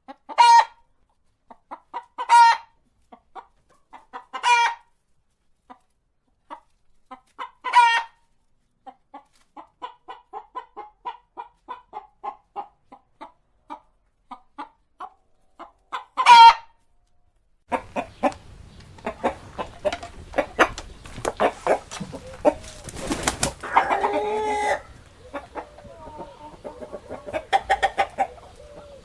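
Chickens clucking and calling. Several loud short squawks come a couple of seconds apart, then a run of soft, rapid clucks, then another loud call. About two-thirds of the way through, the recording changes to a flock clucking over background noise, with one longer, wavering call near the end.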